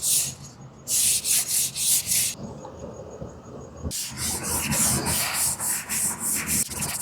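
Wooden boards being hand-sanded with quick back-and-forth strokes. The strokes come in runs and are softer in the second half.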